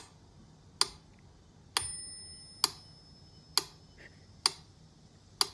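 A series of sharp clicks or taps, about one a second, seven in all. After the one about two seconds in comes a brief metallic ring that fades away.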